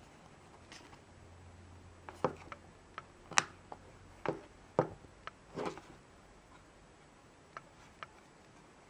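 Small black plastic case of a portable UV lamp being handled: a string of sharp plastic clicks and knocks, about a dozen, bunched in the middle, then two light clicks near the end.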